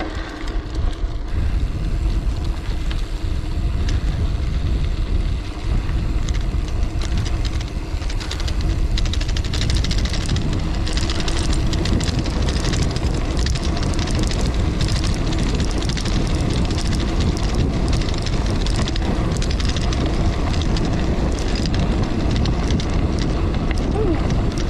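Wind buffeting the microphone and 650b gravel tyres rolling over a dry dirt trail as a gravel bike coasts fast downhill, with many small clicks and rattles from the bumps. The sound grows louder in the first second or so and then stays level.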